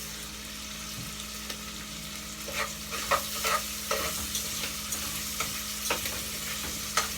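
Salt mackerel with onion, scallion and sweet pepper sizzling in oil in a deep pot while it is stirred, a spoon knocking against the pot several times from about two and a half seconds in.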